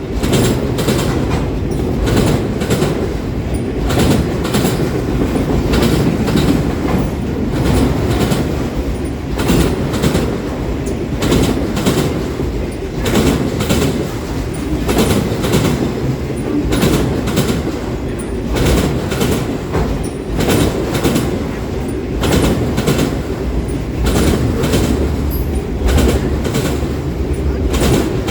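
Canadian Pacific freight train cars rolling past, a steady rumble with wheels clicking in clusters over the rail joints.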